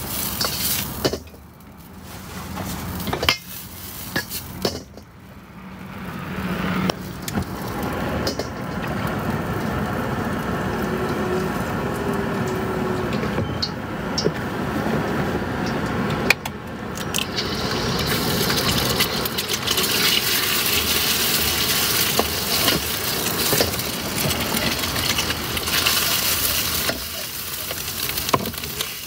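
Egg fried rice stir-frying in a wok: sizzling, with the spatula clinking and scraping against the wok. Patchy for the first few seconds, then a steady sizzle that grows brighter past the middle.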